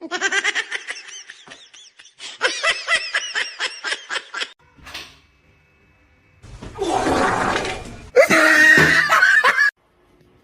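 A person laughing in rapid, repeated bursts for the first four seconds or so. Later comes a noisy burst, then a loud, shrill cry that cuts off near the end.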